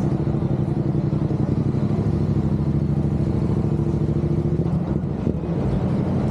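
A nearby engine running steadily with a low hum over the rumble of city street traffic; the hum drops away near the end.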